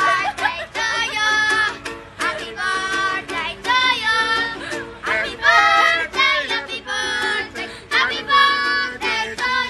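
A young boy singing loudly in a high voice, with a small guitar strummed along as accompaniment.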